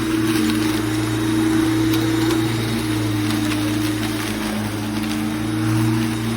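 American Lawn Mower Company 50514 11-amp corded electric lawn mower's motor running with a steady hum, with a few faint ticks over it.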